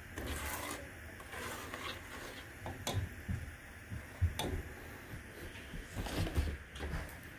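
A spatula stirring and scraping around a saucepan of no-bake cookie mixture as it comes up to the boil, with a few sharp knocks against the pan. Near the end, a cluster of louder knocks and handling noise.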